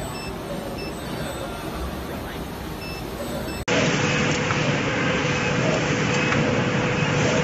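Steady machine-shop background noise. About halfway through it cuts abruptly to a louder workshop din with a steady hum and a few faint clicks.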